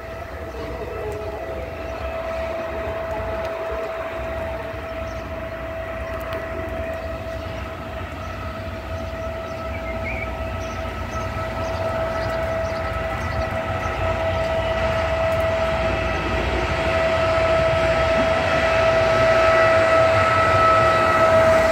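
E464 electric locomotive hauling a Vivalto double-deck train as it approaches, with a steady high electric whine over rail rumble. The whole sound grows steadily louder, and the whine dips slightly in pitch near the end.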